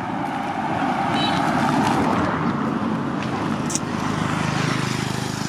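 A car drives past on the road, loudest about two seconds in. Near the end a motorcycle's engine can be heard approaching, running steadily.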